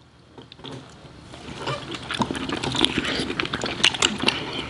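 Close-miked wet eating sounds: chewing and lip-smacking of sauce-coated seafood eaten with the fingers, a dense run of small clicks and smacks that builds up about a second and a half in.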